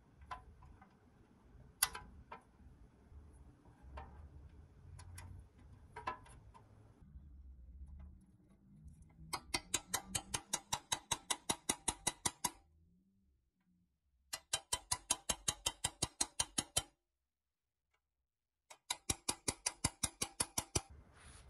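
Socket ratchet clicking rapidly, about eight clicks a second, in three runs of two to three seconds each, turning a socket on a fastener in a pressed-steel toy truck chassis. Before the first run, a few scattered light clicks and taps of small metal parts being handled.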